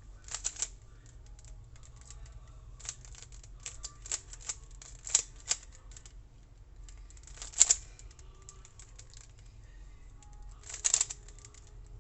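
Rubik's Cube layers being twisted by hand: irregular plastic clicks and clacks, with quick clusters of turns and the loudest snaps about 7.5 and 11 seconds in, as the first-layer corners are solved.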